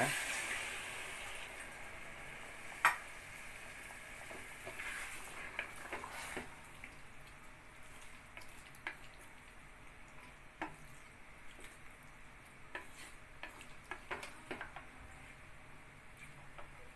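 Water poured into a hot pressure cooker of fried chicken masala sizzles, fading away over the first couple of seconds. Then a wooden spatula stirs the curry, knocking and scraping against the pot now and then, with one sharper knock about three seconds in.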